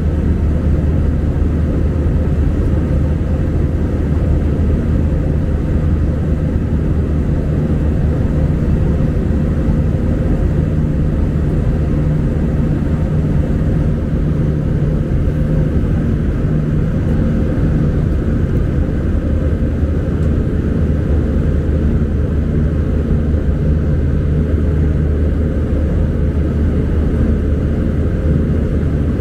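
Steady cabin noise inside an Airbus A319 airliner in flight: a loud, even rumble of engines and airflow with a low hum running through it.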